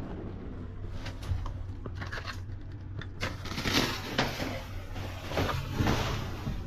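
Plastic garbage bags rustling and crinkling as hands rummage through trash in a dumpster, in irregular bursts that grow busier about halfway through, over a steady low hum.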